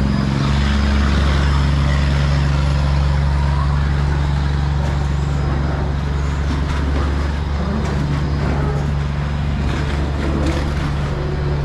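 Diesel engine of a Chao Phraya river express boat, heard on board, running with a steady low drone.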